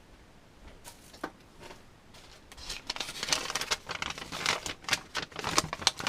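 A folded paper instruction manual being unfolded and handled: rustling and crisp clicks of paper, sparse at first and dense from about halfway through.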